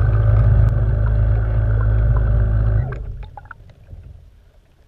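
Radio-controlled model boat's motor running with a steady low hum, heard underwater through the camera's waterproof housing; it stops about three seconds in, leaving a few faint clicks.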